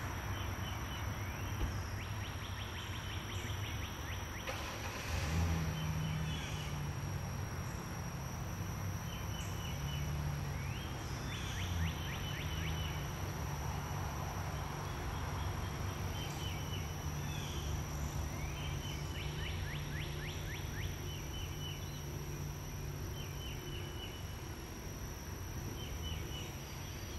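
Outdoor ambience: a steady high insect drone, short chirping trills that come and go every few seconds, and a low steady hum underneath.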